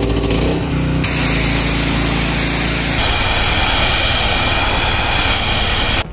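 Small engine-driven fogging sprayer running flat out and blasting a cloud of mist: a loud, steady engine hum under a rushing hiss. The sound shifts abruptly about a second in and again at about three seconds, and cuts off suddenly just before the end.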